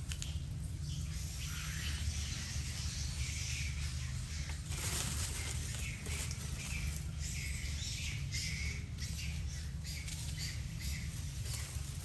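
Outdoor forest ambience: irregular rustling and crackling over a low steady rumble, with a few faint bird chirps.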